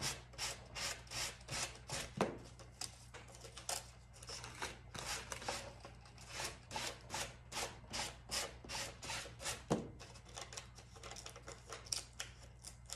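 Sanding block scraping down the edge of a wooden charcuterie board, trimming off the overhanging decoupage paper in quick repeated strokes, about two or three a second. The strokes grow fewer and fainter in the last few seconds.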